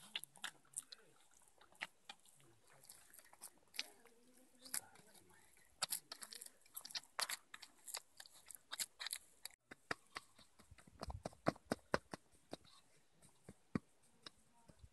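Hands kneading bread dough in a metal bowl, giving soft sticky squelches and scattered sharp clicks. Later, hands pat and press the dough flat on a metal tray, with heavier dull pats among the clicks.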